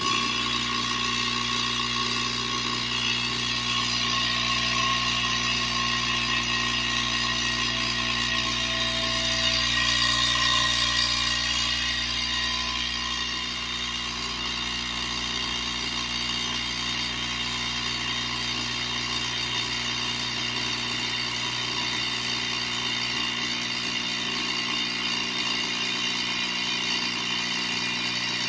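Newly replaced vibratory pump of a La Piccola Cecilia espresso machine running on test, filling the steam boiler with water: a steady buzzing hum that switches on suddenly and keeps on without a break.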